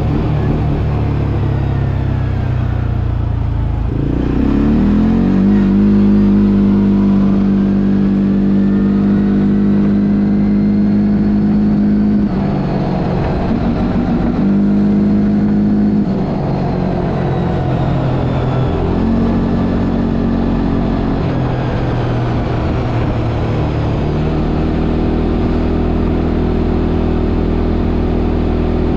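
Quad bike (ATV) engine running under way while being ridden. Its pitch climbs about four seconds in and holds steady as the throttle stays open, then falls and rises again several times as the rider eases off and reopens the throttle.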